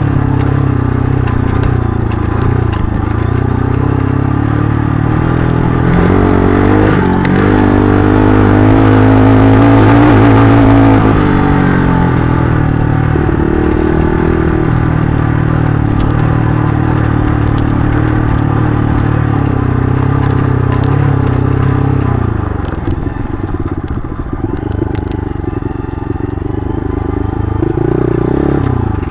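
Mitt 278 125cc scrambler's single-cylinder engine pulling along a rough dirt track. The revs climb to their loudest about ten seconds in, hold steady, drop off a little over twenty seconds in and pick up again near the end. The bike rattles and knocks over the stony ground throughout.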